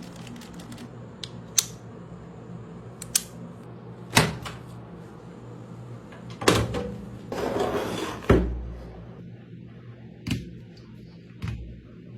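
Scattered sharp clicks and knocks of hard objects being handled, over a steady low hum. About seven seconds in comes a brief scraping, then a heavier thud.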